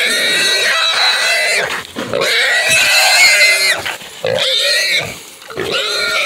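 Wild hog squealing while a catch dog holds it: a series of high, wavering squeals, the first two long, then shorter ones.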